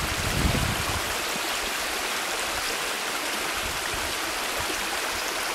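Creek water rushing steadily, an even hiss throughout, with a few low bumps in the first second.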